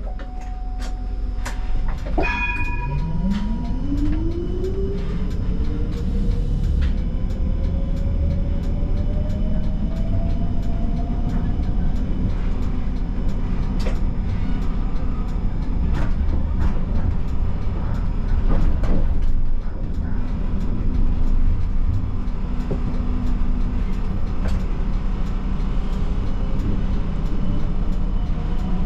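Siemens Combino tram's electric traction drive whining and rising steadily in pitch over about ten seconds as the tram accelerates away. A click and a brief tone come about two seconds in, and the wheels click irregularly over rail joints and points throughout.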